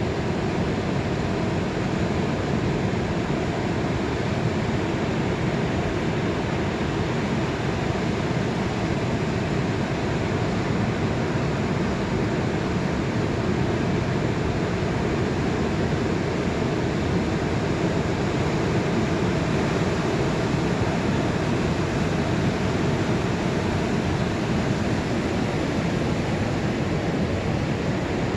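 Ocean surf on an incoming tide: waves breaking and whitewater washing up the beach, a steady rushing noise without pause.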